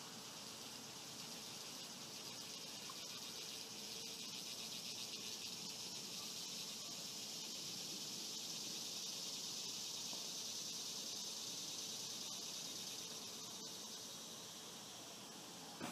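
Faint outdoor insect chorus: a high, finely pulsing buzz that swells a few seconds in and eases off near the end. A brief tap comes right at the end.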